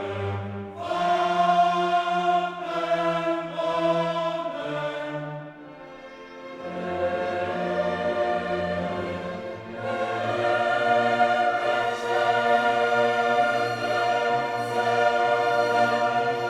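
Choral music with orchestra: a choir singing long held notes in phrases, with a brief quieter dip about six seconds in.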